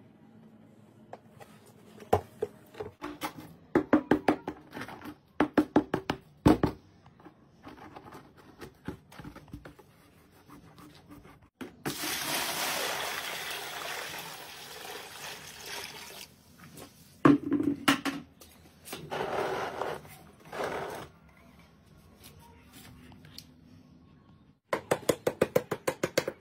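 Water poured from a bucket into a large plastic tub, a steady splashing rush lasting about four seconds, filling the tub to test the patched hole. Runs of short, evenly spaced knocks or beats come before it and again near the end.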